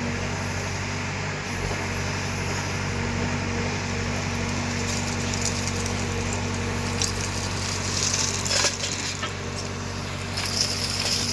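Engine of a heavy earth-moving machine running steadily, with a few sharp clanks or scrapes about eight seconds in and again near the end.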